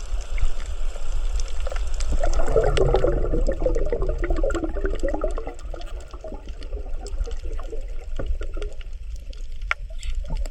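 Underwater sound on a coral reef: scattered crackling clicks over a low rumble, with a burst of bubbling, gurgling water from about two seconds in to about six seconds. The crackle is the 'michi-michi' sound that is said to be coral breathing.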